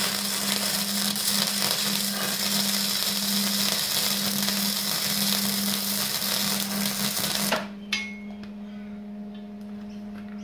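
Gasless (flux-core) MIG welder arc crackling steadily as a bead is run on steel square tubing, cutting off abruptly about seven and a half seconds in. A steady low hum continues underneath throughout, with a single click just after the arc stops.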